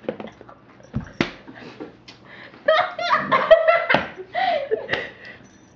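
People laughing and snickering, with two sharp knocks about a second in.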